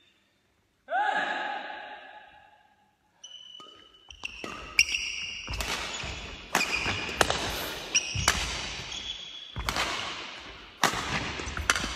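Badminton rally: rackets striking the shuttlecock in sharp cracks about a second apart, with sneaker soles squeaking and stamping on the court floor, echoing around a large sports hall.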